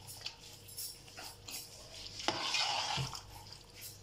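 A slotted metal spatula stirs a wet mix of lentils in an aluminium pot, scraping and clinking against the metal. There are scattered light clicks, with a louder stretch of scraping about two seconds in.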